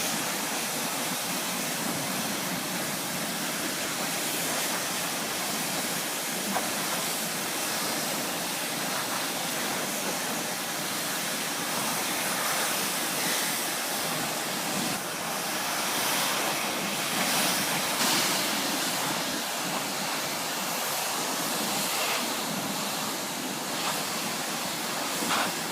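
Pressure washer spraying: a steady hiss of high-pressure water that swells and eases slightly in loudness.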